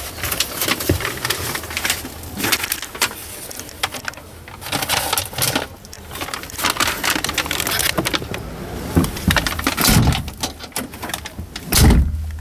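Clatter, knocks and handling noise of someone climbing up into a truck cab, over background noise. Near the end comes a heavy low thump as the cab door is pulled shut.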